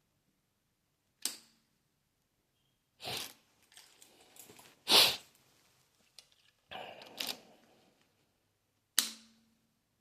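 Handling clicks and knocks on a Jasion S3 Pro electric scooter that will not power on after charging: six separate sharp clicks and clunks, the loudest about halfway through. Two of them, near the start and near the end, are each followed by a brief low hum.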